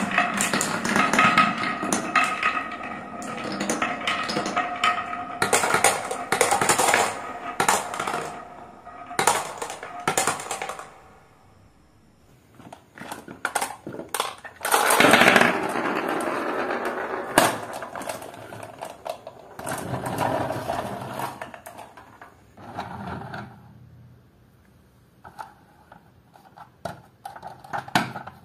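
Marbles rolling and clattering down a plastic and wooden marble run, with many quick clicks and knocks, and a steady whir as they circle a wooden funnel. About halfway, a loud clattering burst as a load of marbles tumbles out of a toy dump truck's tipped bed, followed by quieter scattered clicks and knocks.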